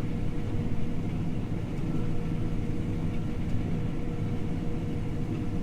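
John Deere T670i combine harvester running steadily at work: an even low drone with a constant thin whine over it.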